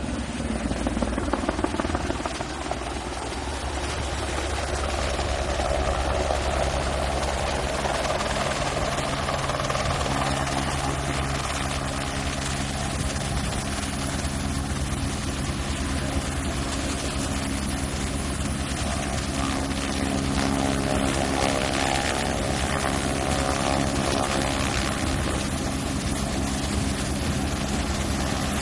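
Firefighting helicopter running: a steady engine and rotor drone, its pitch holding constant throughout.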